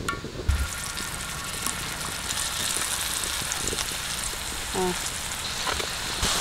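Dried ribbon fish pieces sizzling as they fry in hot oil on a dosa griddle, the sizzle setting in about half a second in as the first piece goes into the oil and then running steadily.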